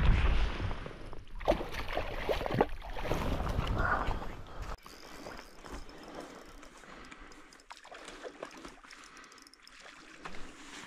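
Moving water splashing and gurgling, with a deep rumble of wind on the microphone, louder for the first few seconds. After that it drops to a quieter trickle with faint clicks.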